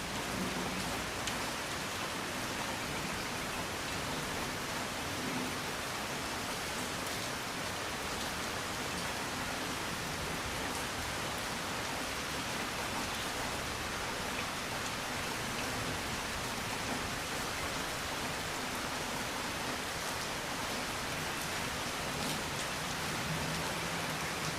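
Steady rainfall: an even hiss of rain falling on surfaces, with no let-up.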